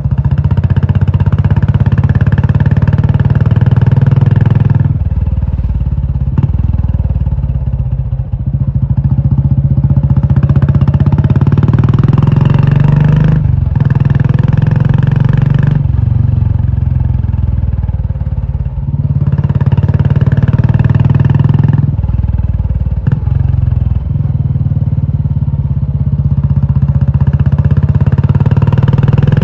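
Royal Enfield Classic 350's air-cooled single-cylinder engine running loud through an aftermarket Indore exhaust, with a deep exhaust note. The throttle is held open for stretches of a few seconds and eased off several times.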